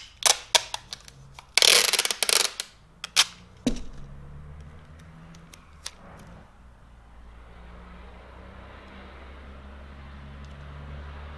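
Clear tape being pulled off its roll: a few sharp clicks, then a loud tearing rip lasting about a second, followed by more clicks. About four seconds in, a steady low hum sets in and carries on, swelling slightly near the end.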